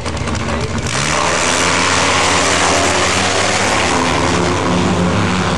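Two drag-racing motorcycles on the start line, their engines running with a rapid pulsing, then launching about a second in at full throttle into a loud, sustained engine noise as they run down the strip.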